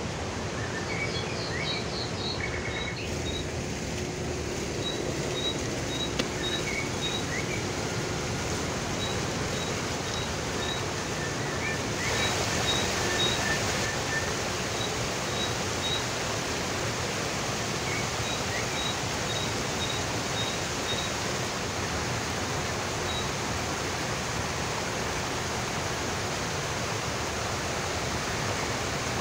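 Fountain water jets and a small stepped cascade splashing steadily into a shallow pool, a constant rush of water that grows a little louder about twelve seconds in. A small bird chirps in short, high, repeated notes at intervals over it.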